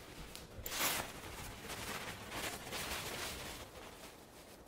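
Fabric rustling as a poncho is folded and stuffed by hand into its waist pouch, in uneven rustles with the loudest about a second in.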